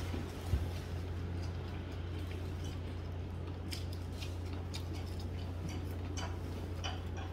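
Steady low hum with a few faint scattered clicks and one soft knock about half a second in.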